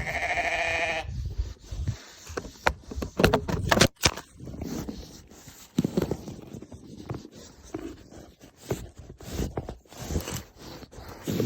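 A sheep bleats once, for about a second, at the start. Then come irregular scraping, crunching and knocking, footsteps and handling noise in snow.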